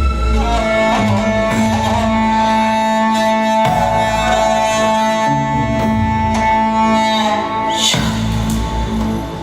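Music with instruments: long held melody notes over a steady low drone and bass, changing briefly near the end.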